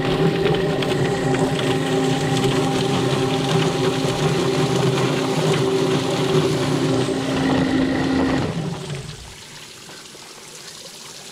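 Electric drum-style chicken plucker running, a scalded chicken tumbling against the rubber fingers of its spinning drum while a hose sprays water in, with a steady motor hum. It is switched off about eight and a half seconds in and the sound drops away.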